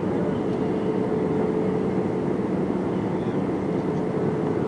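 Steady cabin noise inside an Airbus A320 on approach: engine and airflow rumble with a steady hum note running through it.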